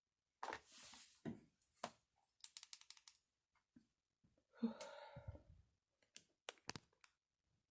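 Faint clicks, taps and rustles of hands handling small craft materials, with a quick run of ticks about two and a half seconds in and a short breathy sound near the middle.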